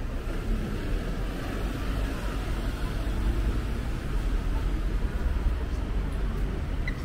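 Town street ambience: a steady rumble of road traffic.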